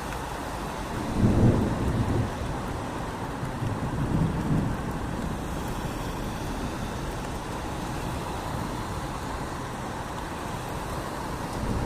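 Steady heavy rain with low rumbles of thunder, a louder one about a second in and a weaker one about four seconds in.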